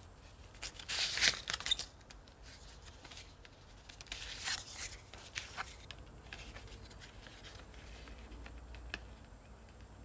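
Leather card wallet handled in the hands: a card and a folded banknote slide and rub against its leather pockets in two short rustling scrapes, about a second in and again around four and a half seconds, followed by a few soft ticks.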